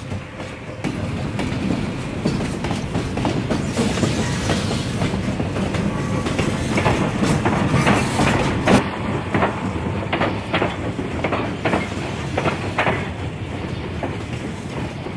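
Big steam locomotive shoving a freight train as a pusher: a steady rumble of the moving train, with a run of sharp, regular beats starting about halfway through.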